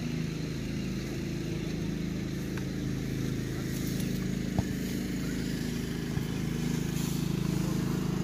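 An engine running steadily, a low even hum that carries on without change, with one sharp knock about halfway through.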